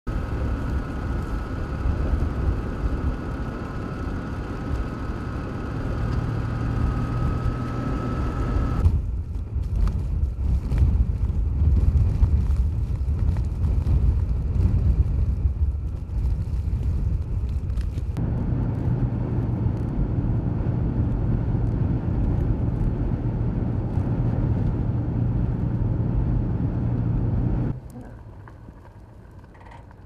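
Strong blizzard wind buffeting the microphone, a loud, gusty low rumble with no other clear sound, broken by abrupt changes about 9 and 18 seconds in. A faint thin whistling tone runs through the first part. Near the end it drops suddenly to a much quieter wind.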